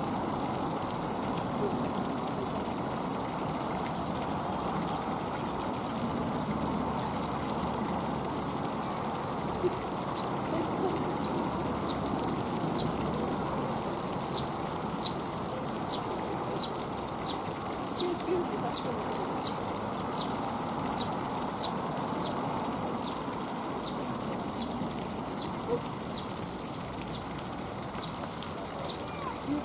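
Outdoor ambience: a steady low rush, with a short high chirp repeating about twice a second from about a third of the way in.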